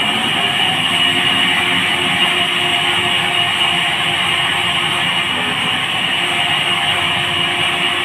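Electric horizontal band sawmill running steadily, its band blade cutting lengthwise through a squared log on the carriage, with a high, even whine from the blade over the motor hum.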